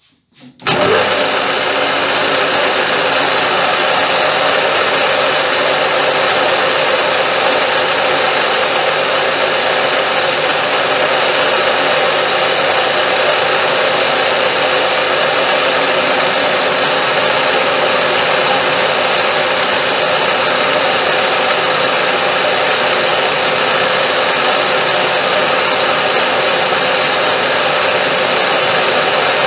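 Hobby metal lathe running with a rotary flattening tool spinning in the chuck, taking a light facing cut of a few tenths of a millimetre on a workpiece held in a vise. It is a steady machine whir with a steady hum, and it starts abruptly just under a second in.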